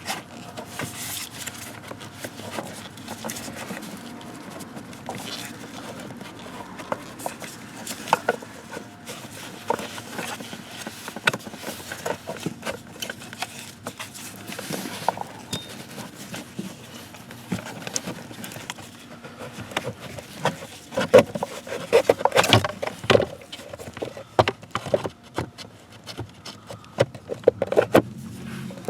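Irregular clicks, taps and rattles of hand tools and car parts being handled during blower motor replacement work. They come thickest and loudest about three-quarters of the way through.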